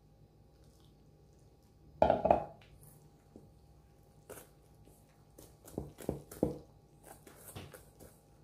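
A wire whisk clinking and scraping against a stainless steel mixing bowl as carrot purée is stirred into flour, in a run of scattered clicks over the second half. About two seconds in there is one loud clatter of knocks, the loudest thing heard.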